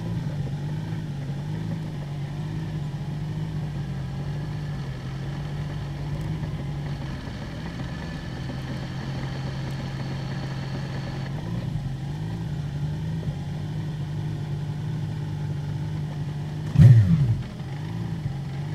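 Open-wheel single-seater race car engine running at low revs while the car creeps along in first gear, a steady low drone with a slight waver. Near the end comes one short, loud throttle blip that drops straight back to idle.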